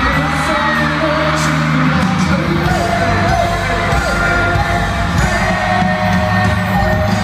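Live pop song played through an arena's sound system: a singer's voice over the backing track, with fans screaming and cheering. The low beat comes in about two seconds in.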